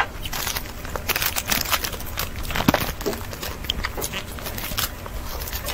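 Thin plastic wrapper crinkling and crackling as it is peeled open and handled around a piece of cake, in irregular sharp clicks and rustles.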